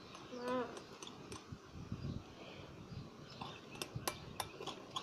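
A utensil clicking and scraping against a bowl while stirring a thick slime mix that detergent has just been added to. The clicks come more often in the second half. A short hum-like pitched sound comes near the start.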